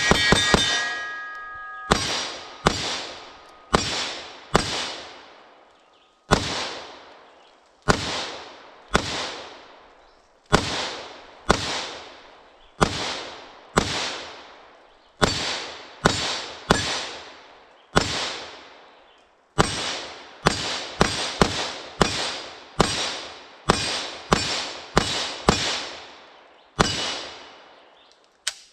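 Kalashnikov USA KR-103 semi-automatic rifle firing East German 7.62x39 practice ammunition, a string of single shots each followed by a long echo. The shots come about one a second at first and faster in the second half.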